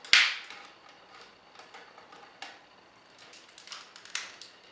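Plastic Megazord toy parts being handled and clicked together: one sharp snap just after the start, then a few fainter clicks and taps.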